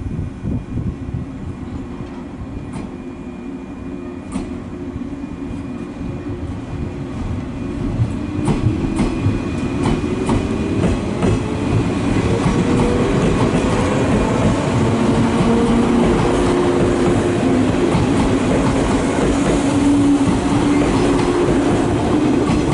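JR West 117 series electric train pulling away and picking up speed. Its traction motor hum climbs in pitch in stages and grows louder from about eight seconds in. Wheels click over the rail joints, most plainly early on.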